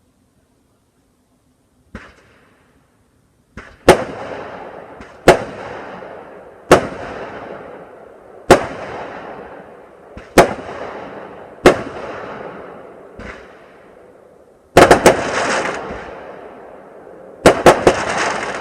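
Fireworks going off. After a quiet start and one faint pop, sharp bangs come about every second and a half, each trailing off in a fading hiss. Near the end come two quick clusters of several bangs with a longer hiss after each.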